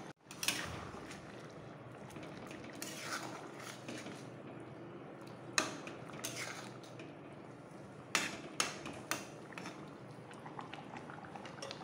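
Spoon stirring fish curry in a metal kadhai, clinking against the pan a few times over the low bubbling of the simmering gravy.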